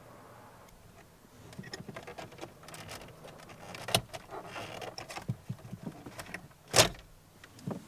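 Plastic lower dash trim panel of a Toyota Tundra being pried loose with plastic pry tools: scraping, creaking and small clicks of plastic on plastic. There is a sharp crack about four seconds in and a louder one just before the end as the panel pops free of its clips.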